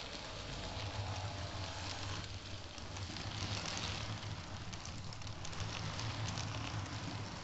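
Model train running on the layout's track: a steady motor hum with a light clicking rattle of wheels over rail joints and points.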